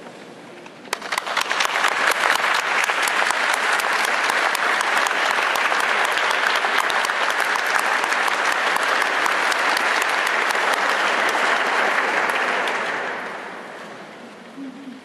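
Audience applauding: the clapping starts suddenly about a second in, holds steady, and dies away near the end.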